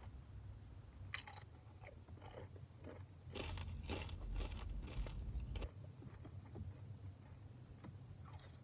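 Close-miked biting and chewing of fresh, crisp tortilla chips: irregular crunches, with a louder stretch of crunching in the middle.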